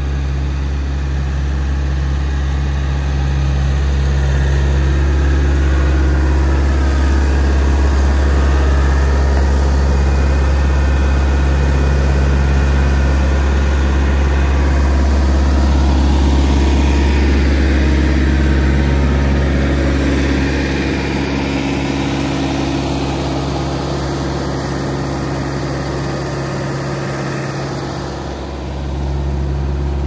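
JCB skid steer's diesel engine running steadily as the machine drives along. It swells a few seconds in and eases off in the second half, with a brief dip near the end.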